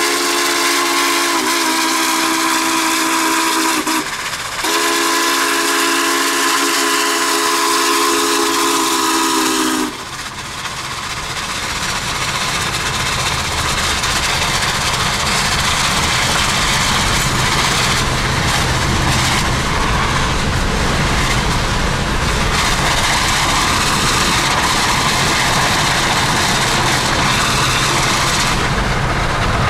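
Union Pacific 844's steam whistle blowing one long chord of several notes, broken briefly about four seconds in and stopping about ten seconds in. After it comes steady road and wind rush from the moving vehicle pacing the train.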